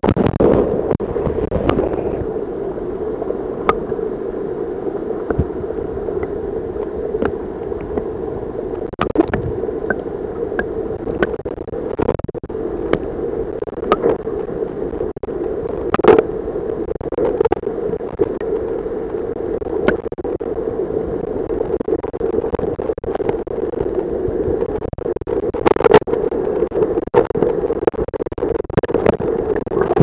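Rushing river rapids heard through a submerged camera: a steady, muffled, dull rush of water, dotted with frequent sharp clicks and knocks.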